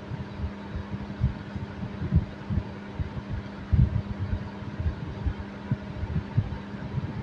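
Room noise: a steady low hum with irregular low thumps, two or three a second.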